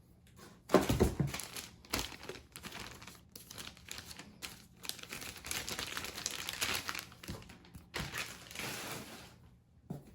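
Packaging being handled: irregular crinkling and rustling of packing material as it is pulled about, with a knock about a second in.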